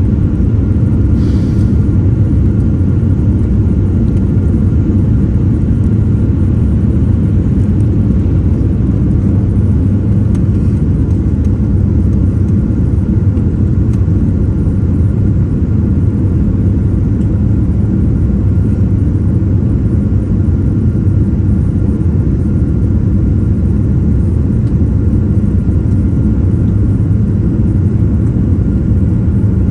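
Jet airliner taking off: the engines and rushing air make a steady, unbroken low rumble, with a faint steady tone above it.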